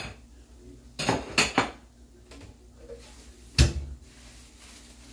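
Dishes and cutlery being handled on a kitchen counter: a quick cluster of clinks about a second in, then a single louder knock, like a plate set down, a little past halfway.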